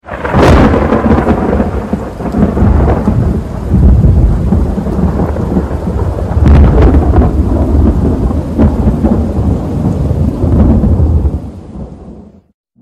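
Thunder rolling over steady rain, swelling several times and fading out just before the end.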